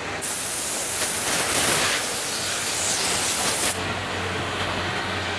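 Compressed-air blow gun hissing in one long blast with a few surges as it blows chips and dust off a freshly drilled panel. It cuts off a little after halfway, leaving a steady low hum.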